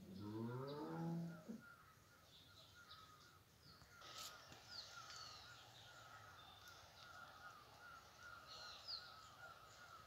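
A cow mooing once, a low call rising in pitch and lasting about a second and a half, followed by faint high bird chirps.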